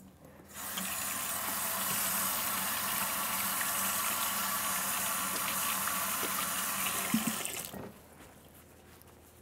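Kitchen faucet running into a stainless steel sink while hands are washed under the stream. The water comes on about half a second in, runs steadily, and is shut off a couple of seconds before the end, with a light knock just before it stops.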